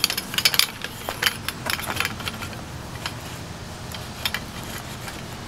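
Clicks and clinks of the shock-corded metal pole frame of an ENO DL Lounger camping chair as it is pulled apart at its hub connectors, the loose poles knocking together at irregular moments.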